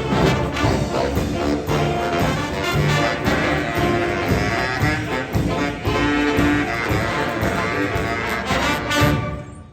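Jazz combo of alto, two tenor and baritone saxophones with bass guitar and piano playing a swing tune, ending on a loud final chord about nine seconds in that dies away.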